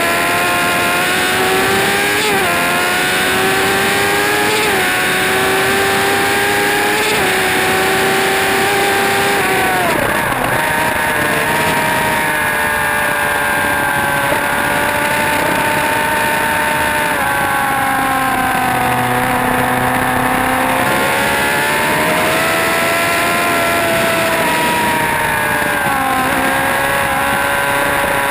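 Motorcycle engine running hard at high revs on a race track. It rises through the gears with two quick upshifts early on, and its pitch falls steeply about ten seconds in as it brakes and shifts down. The revs then sag and climb in long swells, with another quick drop near the end.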